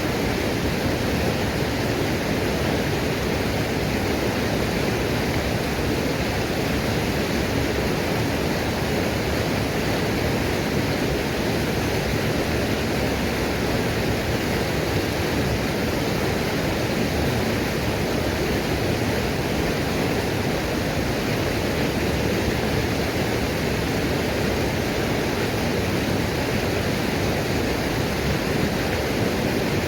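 Small waterfall pouring down rock, a loud, unbroken rush of falling water that stays steady throughout.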